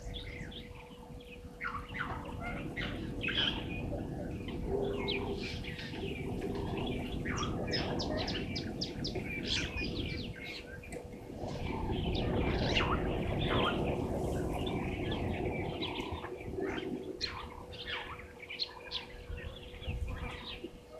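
Many wild birds chirping and calling, short calls overlapping throughout, over a low rumbling noise and a faint steady hum.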